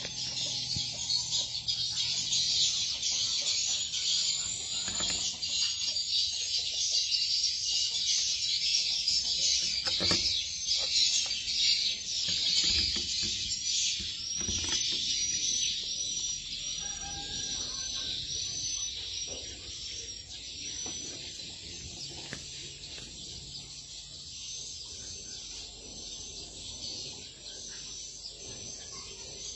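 Swiftlets chirping in a dense, steady high twitter that grows quieter over the last third, with a few soft handling knocks.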